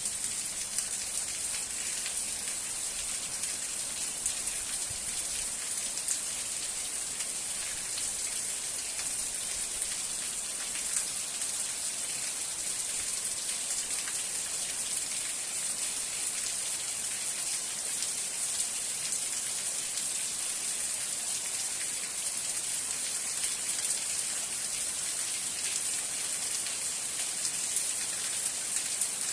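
Steady rain falling, a dense, even hiss with many small drop ticks.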